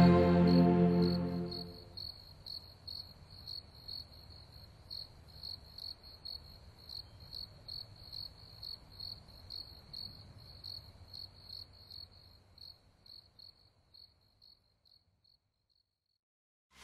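Background music fading out in the first couple of seconds, leaving a single cricket chirping steadily about twice a second. The chirps grow fainter and die away about three-quarters of the way through, and silence follows.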